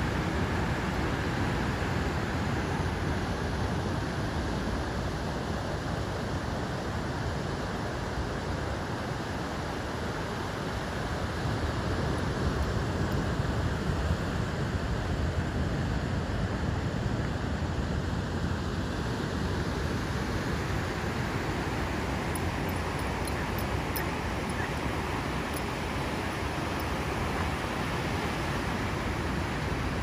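Big ocean surf breaking along a sandy beach: a steady, continuous wash of noise, heaviest in the low end, with no single wave or other event standing out.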